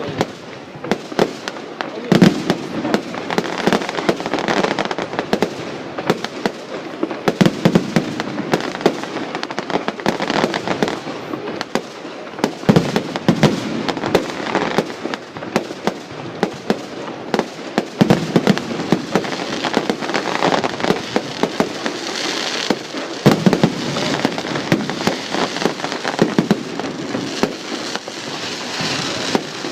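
Fireworks display: a dense, continuous run of bangs and crackling, with heavier booms about every five seconds.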